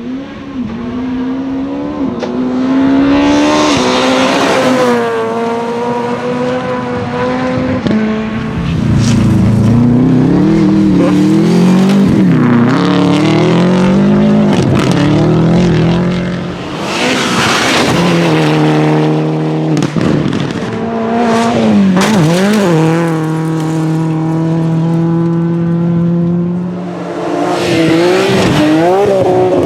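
Rally cars driven hard, engines revving high and dropping repeatedly through gear changes and lifts, with bursts of tyre and road noise as they pass.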